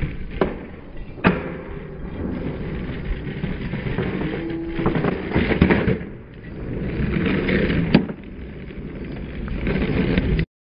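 Skateboard wheels rolling on concrete, with sharp clacks of the board striking and landing about half a second in, just over a second in and again about eight seconds in. The sound cuts off just before the end.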